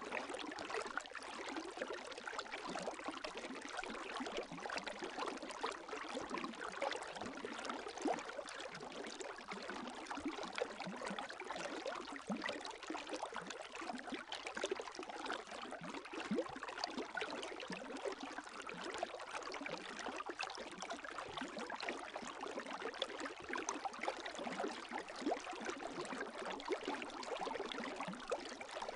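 Gentle lake waves lapping: a steady wash of water full of small, irregular splashes and trickles, with no large swells breaking.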